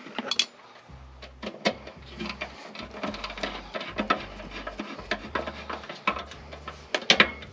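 Irregular metallic clicks, taps and short scrapes of hand work on a blower motor and its sheet-metal housing, with sharper knocks just after the start and again near the end.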